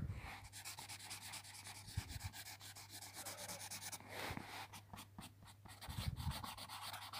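Sharpie marker scratching across sketchbook paper in quick, repeated scribbling strokes, shading in an area. A couple of soft bumps sound about two and six seconds in.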